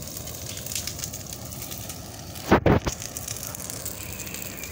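A brushwood bonfire burning, crackling steadily with scattered sharp pops. About halfway through comes a brief, louder muffled thump.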